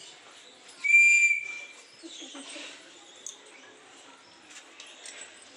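One high, steady whistle blast about a second long, starting just under a second in, holding one pitch and stopping abruptly. Faint low noise follows.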